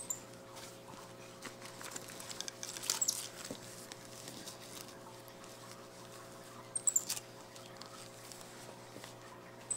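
Soft cloth rustling and handling as pajamas are tugged into place over a diaper on a white-faced capuchin monkey, with a few faint, very high, short chirps from the monkey. These come in two brief clusters, about three seconds in and again about seven seconds in.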